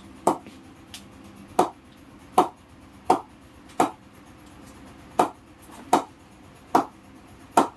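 Leather cricket ball bounced again and again off the face of a Kookaburra Bubble English willow cricket bat: about nine sharp knocks at uneven intervals of roughly a second. This is the bat's ping test, judging how the willow rebounds the ball.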